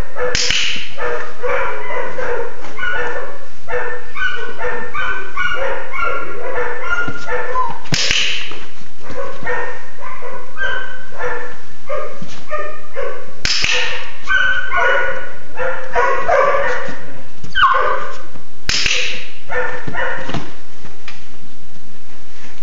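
Rough collie puppies yipping and barking in a near-continuous run of short, high yaps. Four sharper, louder clicks stand out, spaced several seconds apart.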